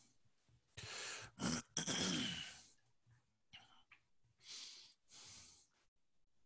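A man coughing, loudest about one to two and a half seconds in, then three short breaths, close to a headset microphone.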